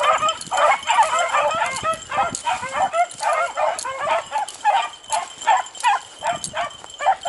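A pack of beagles baying in full cry, many short overlapping calls a second without a break, as the hounds run a rabbit's trail.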